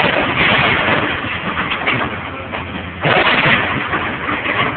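Demolition excavator running as its arm tears into a building, with crashing and crunching of falling debris that surges at the start and again about three seconds in.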